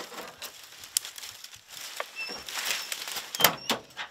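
Footsteps crunching through dry leaves and brush, with rustling and several sharp clicks and knocks as a pickup's tailgate is handled at a dog box, the loudest knocks about three and a half seconds in.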